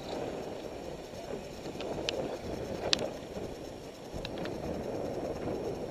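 Wind and road rumble on a helmet-mounted camera as its wearer rides off along the street, with a few sharp clicks, the loudest about three seconds in.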